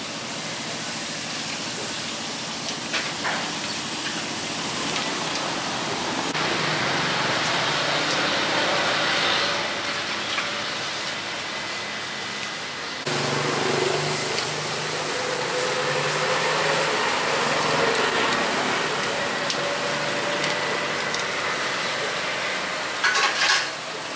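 Meat sizzling on a street grill, a steady hiss with a low rumble behind it; the sound changes abruptly about halfway through.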